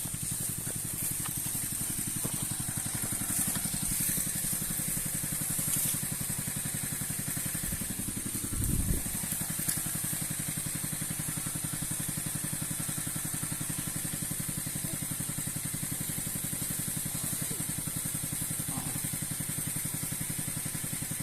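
Small engine of a power sprayer running steadily at a constant speed, driving the pump that feeds a long spray hose. A brief low rumble comes about eight to nine seconds in.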